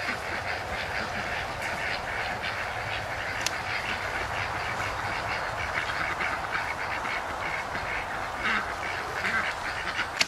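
A flock of ducks quacking continually. Near the end comes a single sharp snap, a bowstring released from full draw.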